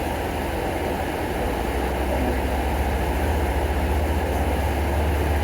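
Steady low rumble of a farm vehicle running, with no distinct knocks or changes in pitch.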